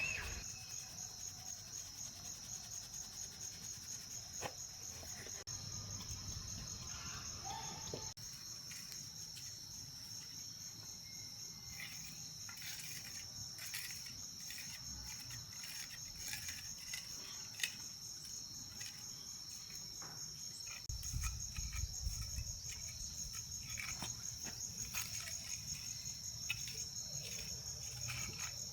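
Insects calling in a steady high-pitched chorus, with scattered light clicks and knocks and a low rumble in the last several seconds.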